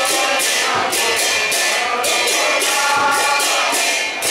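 Devotional kirtan: hand cymbals struck in a steady beat, about three to four strikes a second, ringing over group singing.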